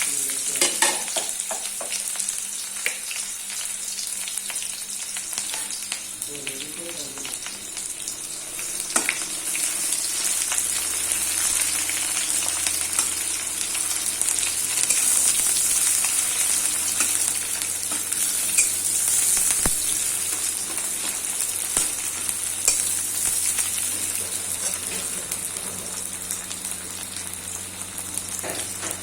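Sliced onions sizzling in hot mustard oil in a pan, a steady frying hiss with occasional sharp clicks as they are stirred.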